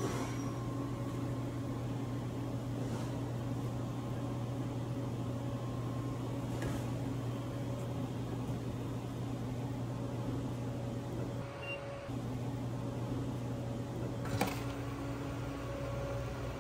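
Steady hum of commercial kitchen equipment, a low drone with a faint higher whine. A few light taps from handling food, and a sharper knock about 14 seconds in.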